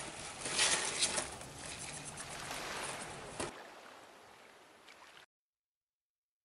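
Choppy water washing against a shore of loose slate, with scattered clicks of small stones shifting under a hedgehog's feet. It fades away from about three and a half seconds in.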